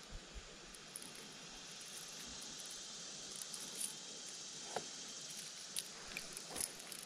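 Faint steady high hiss of the riverside surroundings, with a few light clicks and rustles in the second half as a crankbait lure and fishing line are handled by hand.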